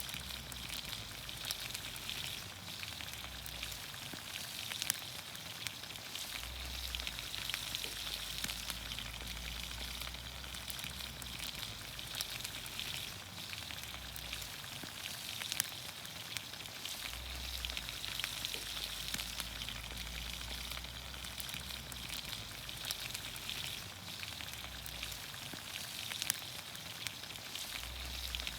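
Vegetables in olive oil sizzling steadily in a pan over a campfire, with many small crackles and pops.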